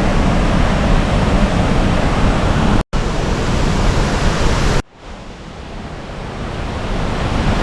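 Steady rushing roar of a waterfall. The sound cuts out for an instant about three seconds in, drops away suddenly near five seconds, and then slowly swells back up.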